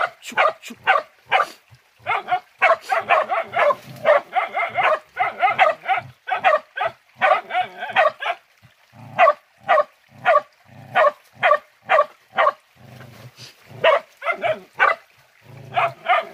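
Pig-hunting dogs barking at a wild pig holed up in a burrow: a rapid, unbroken string of barks, several a second, easing briefly about three-quarters of the way through.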